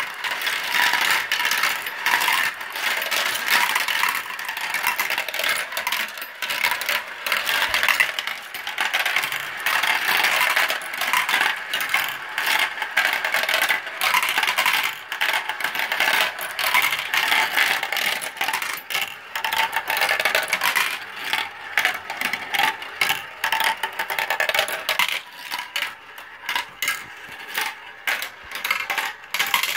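Glass marbles rolling and clattering through a plastic marble run, spinning around funnel bowls and dropping through the tubes: a continuous rattle of rapid clicks that thins to scattered clicks near the end.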